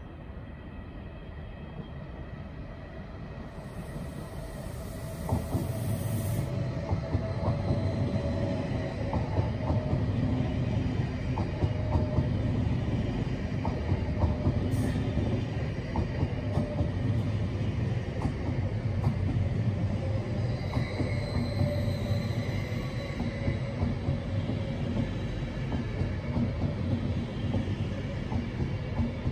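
SBB double-deck passenger train coming in along the platform. Its rumble swells over the first five seconds or so, then runs on steadily, with the wheels clicking over rail joints and a faint high squeal.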